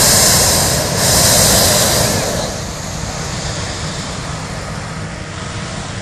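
Hot air balloon's propane burner firing: a loud, hissing blast that breaks briefly about a second in, fires again and cuts off after about two seconds, leaving a steady low rumble.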